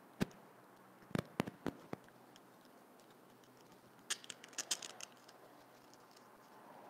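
Small sharp clicks and crackles of things being handled: a single click just after the start, a run of four or five clicks about a second in, and a denser crackly cluster about four seconds in.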